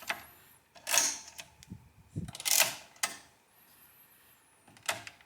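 Vaucanson AVA13 pinwheel calculator's metal mechanism clicking and rattling as it is worked by hand, in a few short bursts with pauses between.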